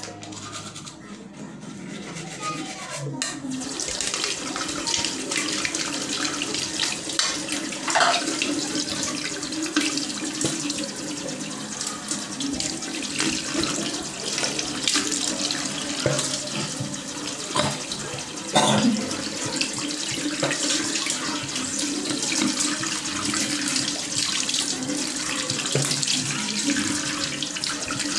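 Tap water running into a bathroom sink, starting about three and a half seconds in, with splashes as water is scooped in cupped hands and splashed onto the face. Several louder splashes stand out along the way.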